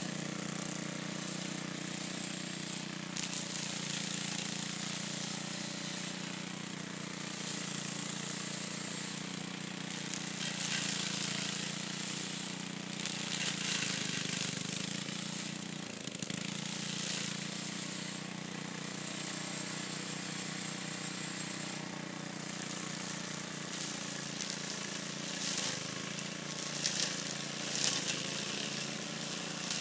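Small engine of an old walk-behind rotary lawn mower running steadily while mowing grass, with a few stretches of louder rasping hiss.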